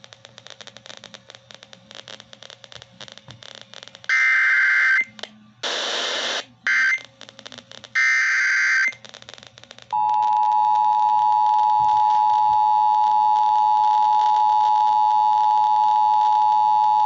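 Emergency Alert System activation: faint crackling hiss, then about four seconds in, several short, loud digital data bursts of the SAME header. About ten seconds in, the steady two-tone EAS attention signal starts and holds.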